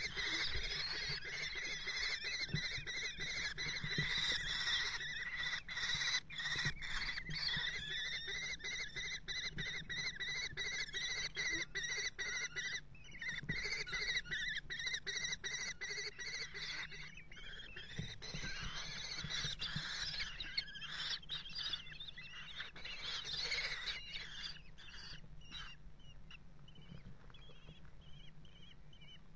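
Common kestrel chicks giving a continuous, high-pitched, wheezy begging call, with frequent scratching and knocking as they move about.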